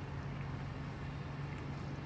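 Steady low hum inside a parked car's cabin.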